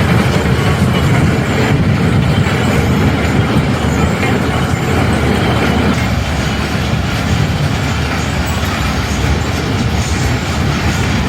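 Matterhorn fairground ride running at speed, its cars rattling and rumbling around the undulating track in a loud, continuous clatter.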